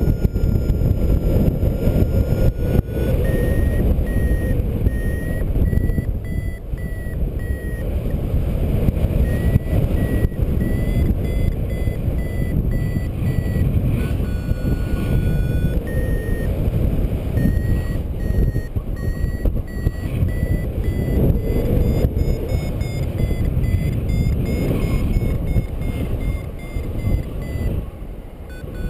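A paragliding variometer sounding through the flight. It gives runs of beeps that creep slightly higher in pitch, the climb signal, broken twice by a steadier, lower tone. Behind it, strong wind rushes on the microphone.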